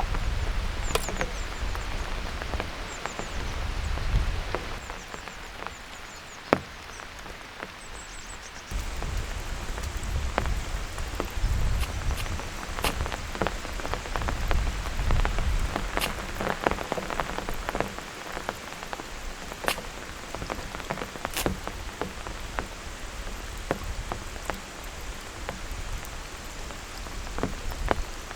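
Heavy rain falling steadily, with many close drops striking as sharp, scattered taps. One tap about six and a half seconds in is the loudest, and the rain gets louder just before nine seconds in.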